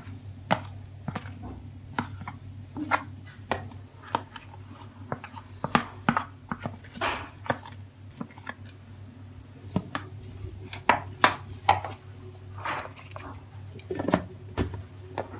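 Plastic container and mixer-grinder jar knocking and clicking together, irregular sharp taps as thick, partly frozen kulfi mixture is scraped from one into the other, with the jar's plastic lid handled near the end. A steady low hum runs underneath.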